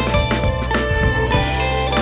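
Background music: an instrumental track with guitar, bass and drums keeping a steady beat.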